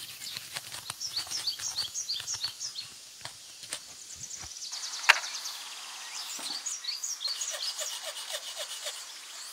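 Small birds chirping in quick repeated series, with a knife scraping a dry stalk in short strokes during the first few seconds and one sharp click about five seconds in.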